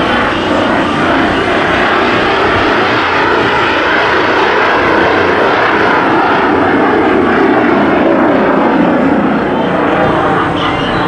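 Loud, steady engine noise of an aircraft flying past, swelling slightly in the middle.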